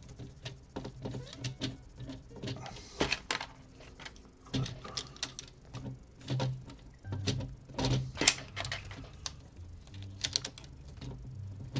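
Plastic LEGO pieces clicking and clattering as they are handled and pressed together: irregular sharp clicks and taps, the loudest about eight seconds in.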